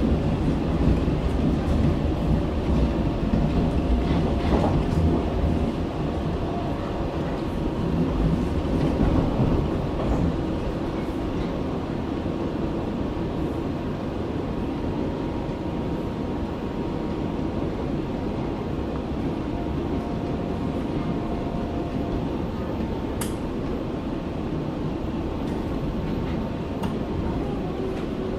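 Berlin U-Bahn F79 subway car running along the track between stations: a steady rumble with faint steady whining tones. The sound is louder for the first ten seconds or so, then settles lower, with a single sharp click about 23 seconds in.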